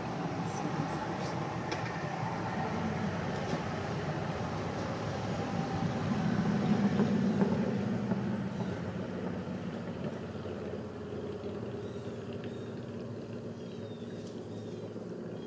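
Motorcycles passing on the road, their engines swelling to a peak about seven seconds in and then fading away.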